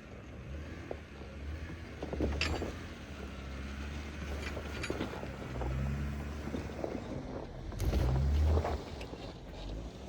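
2014 Jeep Wrangler Rubicon's 3.6-litre V6 running at low revs while crawling a rocky off-road trail, with scattered clicks and knocks. The engine swells louder briefly about eight seconds in.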